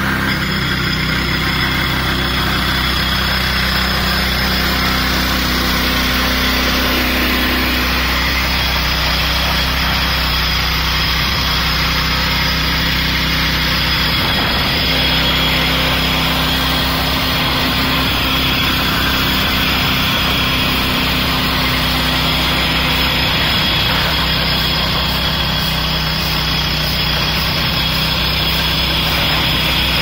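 DFG400 petrol floor grinder running steadily, its small petrol engine holding a constant speed while the grinding head works the concrete surface, a continuous even machine noise with no let-up.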